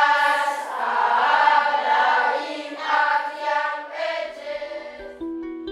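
A group of voices singing together in a choir, held notes in swelling phrases that fade out about four and a half seconds in. Plucked-string notes begin near the end.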